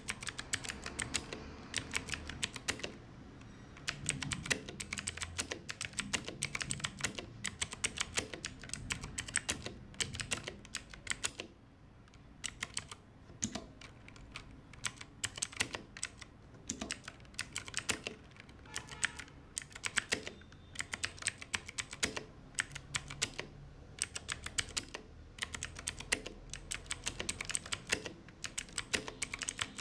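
Clicky blue-switch mechanical keyboard being typed on quickly and continuously, a steady run of sharp key clicks with a few brief pauses.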